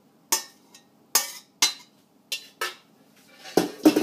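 A metal spoon scraping and knocking against a stainless steel frying pan as its contents are tipped out into a ceramic dish: a string of about eight sharp clinks, the heaviest knocks near the end.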